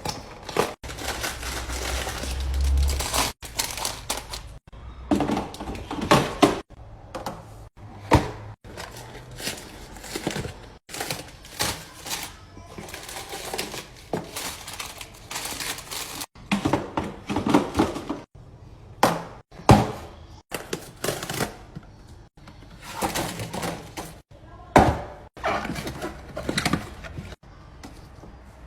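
Household items and containers being handled and set down while a fridge is organized: repeated knocks, taps and clatter with rustling between, broken up by many abrupt cuts.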